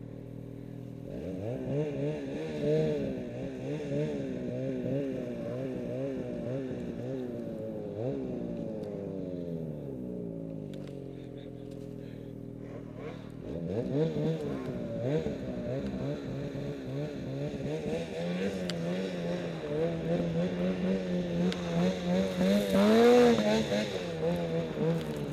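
Snowmobile engine running under changing throttle, its pitch rising and falling. It drops to a low, steady note about ten seconds in, climbs sharply again a few seconds later, and holds a higher pitch near the end.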